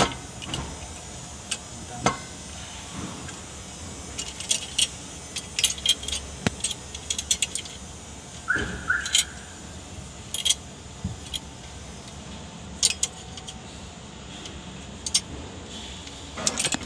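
Irregular metallic clinks and clicks of hand tools and bolts on a Mitsubishi 4D56 diesel's cylinder head as the head bolts are undone, with two short squeaks a little past halfway.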